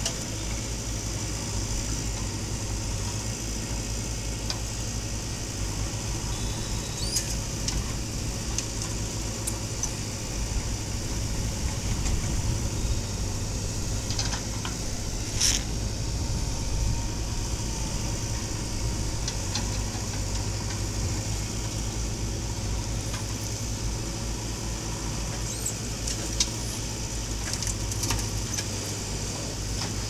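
JCB backhoe loader's diesel engine running steadily under load as the backhoe digs soil, with a few light clicks and one sharp knock about halfway through.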